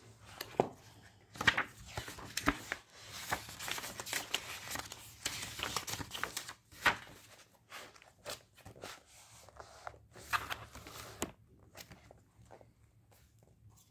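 Paper pages of a notebook being handled and flipped by hand: rustling and crinkling with sharp paper snaps, dying down about eleven seconds in.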